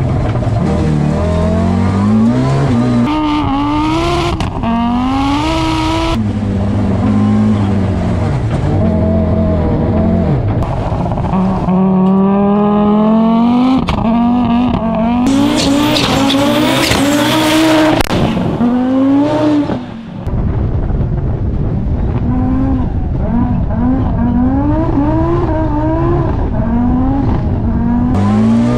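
Audi S1 rally car's turbocharged five-cylinder engine revving hard on dirt, its pitch climbing and dropping back sharply at each gear change, again and again. About halfway through, a few seconds of loud hiss rises over the engine.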